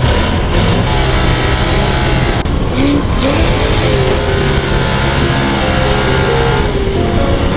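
Off-road sand car's engine running hard through the dunes, its pitch rising and falling as the throttle changes, over a steady rush of wind and tyre noise on sand.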